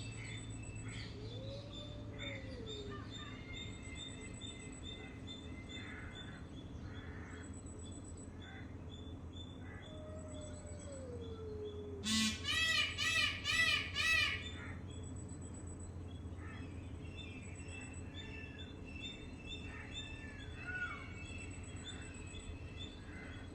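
Many wild birds chirping and singing, with a quick series of about five loud calls in the middle, over a steady low hum.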